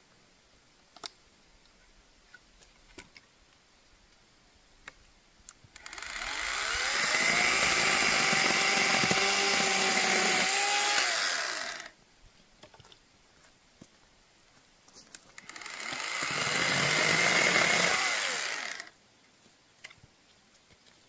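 Chainsaw cutting firewood in two runs. The first time it speeds up, holds for about five seconds, and then cuts off. The second time it speeds up again for a shorter cut of about three seconds.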